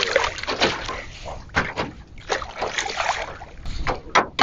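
Hooked sea bass thrashing at the water's surface beside a small boat, making irregular splashes, one louder splash near the end.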